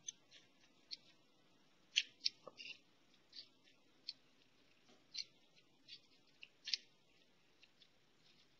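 Faint, irregular small clicks, about a dozen over several seconds, over quiet room tone.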